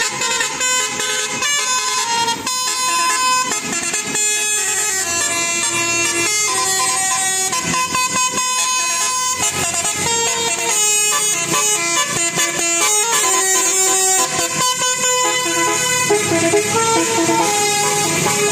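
Bus telolet horn, a multi-tone air horn, playing a melody of short held notes that change pitch step by step.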